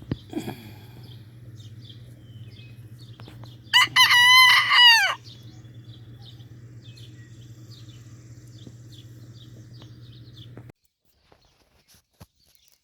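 Bantam rooster crowing once, about four seconds in: a quick, wavering cock-a-doodle-doo lasting about a second and a half and ending in a falling note. A steady low hum runs underneath and cuts off suddenly near the end.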